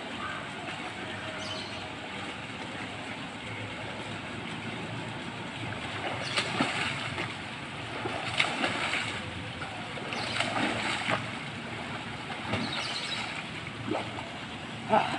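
Water splashing from a person swimming in a swimming pool, over a steady background hiss. The splashes come in short bursts about every two seconds from about six seconds in.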